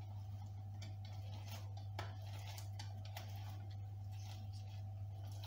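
Half a lemon being twisted on a green plastic hand citrus reamer: faint, scattered ticks and rubbing, over a steady low hum.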